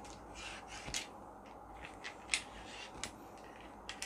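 Faint clicks and short scrapes of an aluminium-alloy tripod's telescoping centre column being twisted and pulled out by hand to raise it, with a few sharp ticks along the way.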